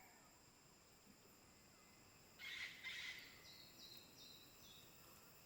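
Faint forest birdsong over a steady high insect drone: a short burst of chirps about halfway through, then four quick high notes, each a little lower than the last.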